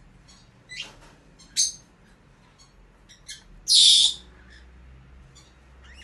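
Makige frill canary giving short, scattered chirps, with a louder, harsh half-second burst about four seconds in.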